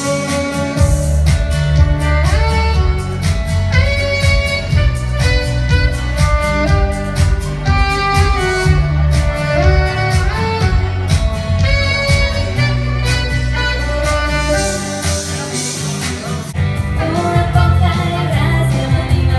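Live saxophone and female vocal duo performing a song over a backing track with a steady beat and bass.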